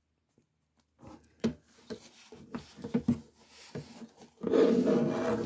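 Handling noise from a Honda Interface Module's coiled cable and plastic OBD2 connector: a series of light knocks and clicks with rubbing, then a louder, steadier stretch of handling noise near the end.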